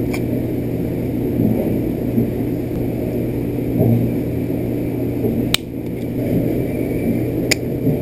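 Steady low rumbling background noise, with three sharp clicks of small metal parts and pliers as a gear and its keeper pin are fitted on a robot's hip motor shaft: one at the start and two close together near the end.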